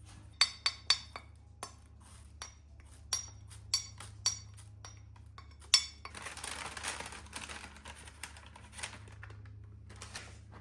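Dishes and cutlery clinking: a string of sharp, ringing clinks, then a couple of seconds of hissing noise and a few more clinks.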